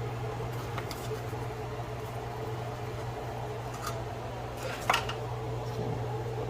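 A few light taps and clicks as biscuit dough rounds are set into a metal non-stick muffin pan, the sharpest about five seconds in, over a steady low hum.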